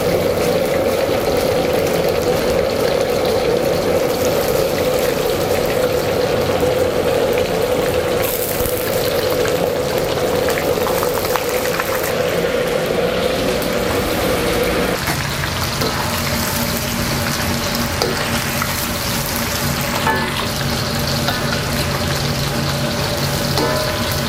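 Starch-battered chicken strips deep-frying in hot oil, a steady sizzle. This is the first fry, taking the chicken only to about 70% done before a second fry.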